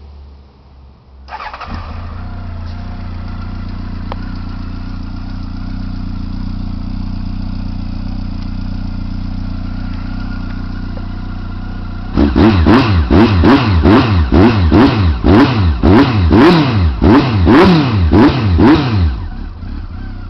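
Honda CB1300 inline-four motorcycle with a Roncar SS1 aftermarket exhaust being started and settling into a steady idle. About halfway through, the throttle is blipped about a dozen times in quick succession, each rev rising and falling sharply, before it drops back to idle.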